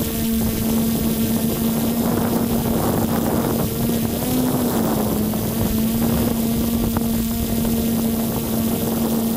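Electric motors and propellers of a multirotor drone hum steadily, heard close up from the camera carried on the aircraft itself, with wind rushing over the microphone. The pitch lifts briefly about four and a half seconds in as the motors speed up, then settles back.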